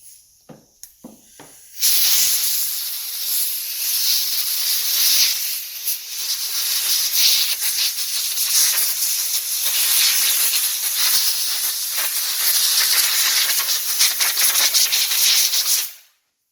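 Compressed-air blow gun blasting through a pleated paper lawn mower air filter to clean it: a few light handling clicks, then about two seconds in a loud, wavering hiss of air that runs for some fourteen seconds and cuts off suddenly near the end.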